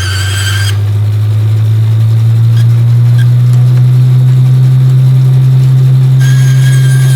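A loud, low steady hum that swells over the first few seconds, with a high-pitched whine over it at the start and again near the end; it cuts off abruptly.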